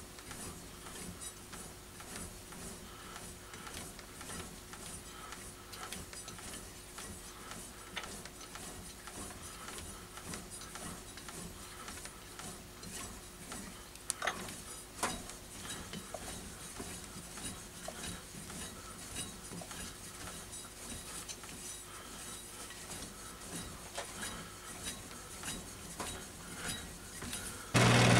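Metal lathe running with a steady low hum, with scattered light metallic clicks and clinks; the noise jumps sharply louder just before the end.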